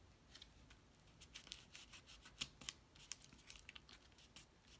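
Faint rustling and small scattered clicks of cardstock being handled as fingers fold a glued tab under and press the pieces into place.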